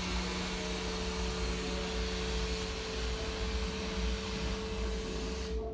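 A steady machine-like drone with hiss and a deep rumble, carrying a held hum tone; a second, lower hum tone drops out about halfway.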